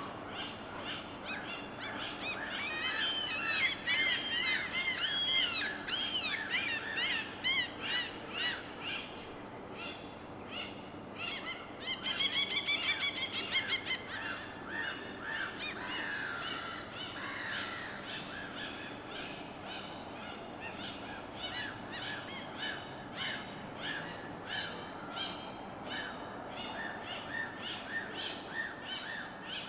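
Birds calling and chirping over a steady background wash. A dense run of short, arching calls comes a few seconds in, and a fast trill comes about halfway through. Scattered chirps follow.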